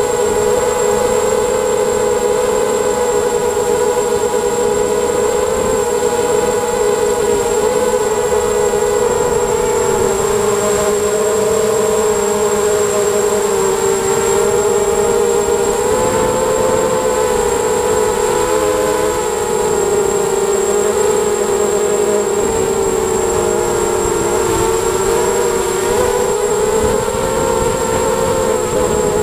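ZMR250 mini quadcopter's brushless motors and propellers whining in flight as heard from the onboard camera, the pitch wavering with throttle and dipping briefly about two-thirds of the way through. A steady high-pitched whine sits above it.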